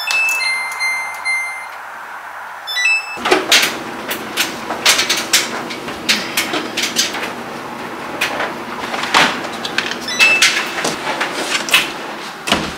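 Short electronic beeps from a Samsung washer-dryer's control panel as its buttons are pressed. Then laundry is pulled through the front-loader's door with rustling and clicks over a steady hum, one more beep about ten seconds in, and a door thudding shut near the end.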